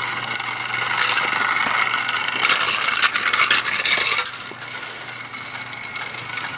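Small battery-powered toy cars running on a flexible, segmented plastic track: a small electric motor whirring under a rapid, continuous clicking rattle of the plastic wheels over the track segments. It gets somewhat quieter after about four seconds.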